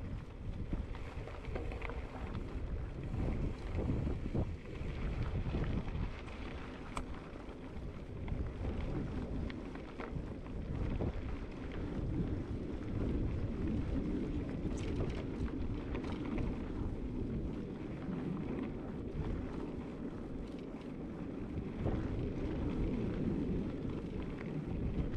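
Wind buffeting the microphone during a mountain-bike ride on a dirt trail, a steady low rumble with scattered clicks and rattles from the bike.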